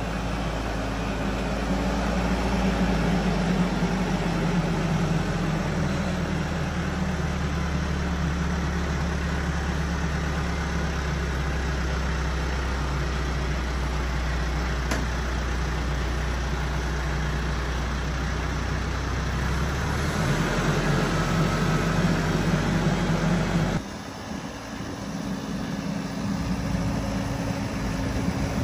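TYM 574 diesel tractor engine running, its speed rising a few seconds in and settling back later. Near the end the sound drops suddenly and then picks up again.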